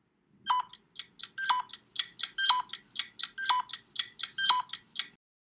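Electronic ticking jingle of quick pitched beeps, about four to five a second, with a stronger, lower tone once a second. It stops after about four and a half seconds.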